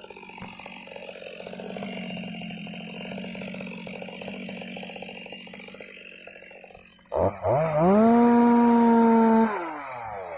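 Stihl MS 250 two-stroke chainsaw running at low speed, then revved sharply about seven seconds in and held at a high, steady pitch for a second or two before dropping back down near the end.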